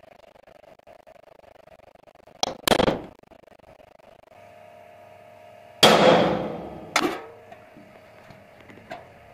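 Hammer blows on a steel number punch, stamping a chassis number into an e-rickshaw's steel frame. A quick pair of strikes about two and a half seconds in, the loudest ringing blow near six seconds, another about a second later, and a faint tap near the end.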